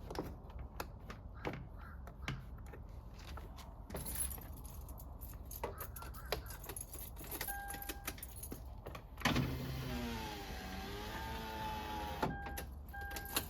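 Power window motor in a 2012 Toyota 4Runner's driver's door lowering the glass: it starts suddenly about nine seconds in and runs for about three seconds. Before it come scattered clicks and rattles as the loose door panel and its connectors are handled, and short steady beeps sound just before and just after the motor runs.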